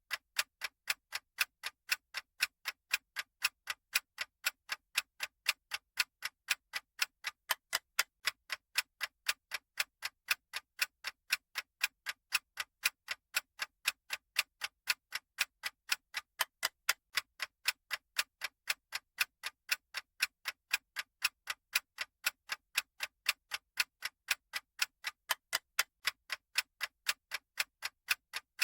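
Clock-style ticking sound effect of a countdown timer: sharp, evenly spaced ticks, about three a second, alternating louder and softer like a tick-tock.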